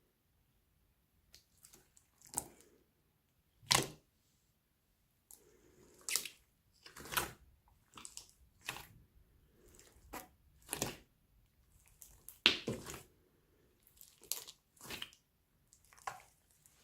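Slime being squished and stretched by hand, giving about a dozen short, irregular wet squelches and sticky pops.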